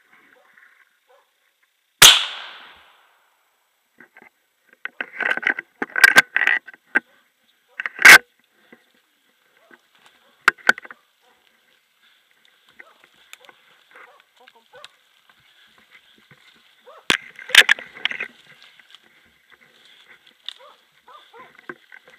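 A rifle shot about two seconds in, a sharp crack with a short echo, followed by a hunting dog barking in short bursts and several more sharp cracks, the loudest about eight seconds in.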